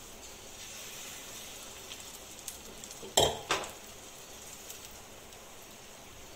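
Besan chilla batter sizzling in hot oil in a nonstick pan, a steady hiss. About three seconds in come two sharp clinks against the pan, the loudest sounds, with a few lighter clicks around them.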